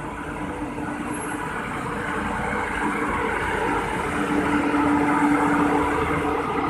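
Indian Railways WAP-7 electric locomotive passing close by, wheels rumbling on the rails with a steady hum, growing louder as it draws level about two-thirds of the way in.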